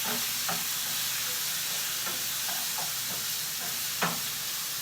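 Food sizzling steadily in a hot pot or pan, with a constant frying hiss.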